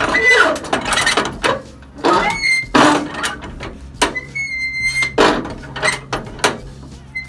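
Ratchet winch bar working a flatbed trailer's strap winch: a string of sharp ratchet clicks and metal knocks, roughly one every half second to a second, with a few short high metallic rings.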